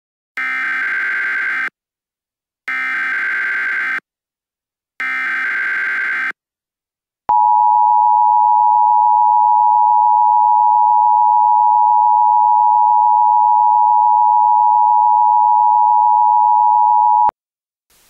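Emergency Alert System tones in a homemade mock alert: three short bursts of SAME header data, each about a second and a half long with short gaps between them. Then the steady two-tone EAS attention signal holds for about ten seconds and cuts off suddenly.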